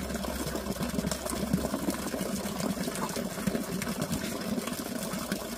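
Water pouring from a pipe and splashing steadily into a plastic bucket.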